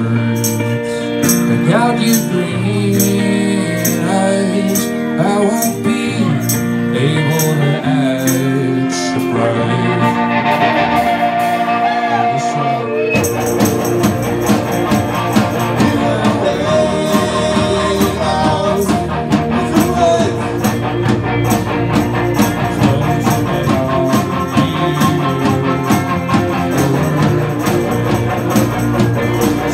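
Live rock band playing a song: electric guitars, a drum kit keeping a steady beat, and a singer. About halfway through the whole band comes in fuller and heavier.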